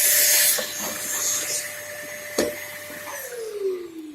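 Vacuum cleaner running with a steady motor whine and loud rushing air that quietens about half a second in, with one sharp click past the middle. Switched off near the end, its whine falling slowly as it winds down, likely clearing sawdust from a freshly bored holesaw cut.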